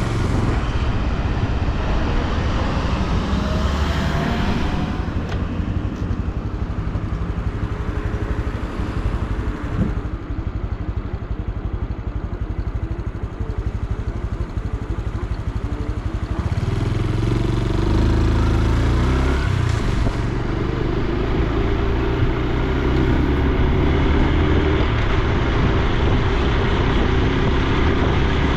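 Honda Super Cub C125's single-cylinder four-stroke engine and exhaust running while riding, with road and wind noise. It runs softer for a stretch in the middle, then louder and deeper from about sixteen seconds in.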